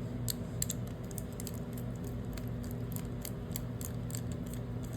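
Light, irregular clicks and taps of metal hydraulic-pump parts being handled and pulled apart by hand, over a steady low hum.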